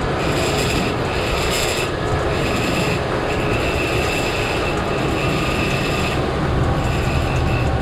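Boat underway at trolling speed: the outboard motors running under a steady rush of water and wind, with a high whine that cuts in and out several times.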